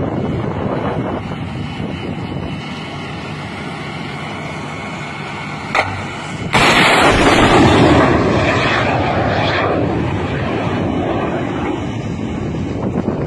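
Surface-to-air missile fired from a mobile air-defence launcher: a short sharp crack, then about six and a half seconds in a sudden loud rushing roar that fades over several seconds as the missile climbs away. Before the launch there is a steady rumbling background.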